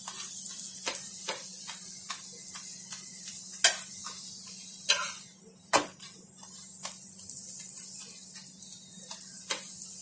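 Paneer paratha sizzling in oil in a nonstick frying pan while a metal spatula presses it down, with sharp taps and scrapes of the spatula against the pan. The loudest clicks come in the middle. A steady low hum runs underneath.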